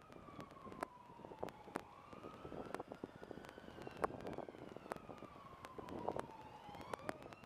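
An emergency vehicle's siren in a slow wail, its pitch sliding down, then up, then down again. Sharp clicks and crackles run through it.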